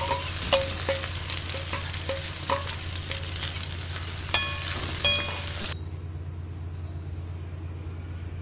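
Food sizzling and frying in a steel pan, with a metal spoon clinking and scraping against the pan while stirring, a few of the strikes ringing. The sizzle cuts off abruptly about six seconds in, leaving a low steady hum.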